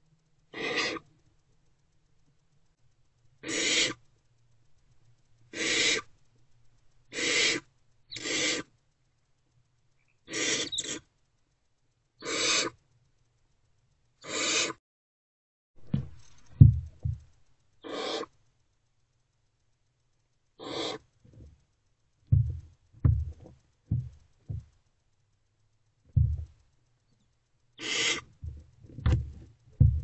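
Barn owlets giving their hissing snore-like begging calls, each about half a second long, repeated every one to three seconds. From about halfway there are also short low bumps and scuffles.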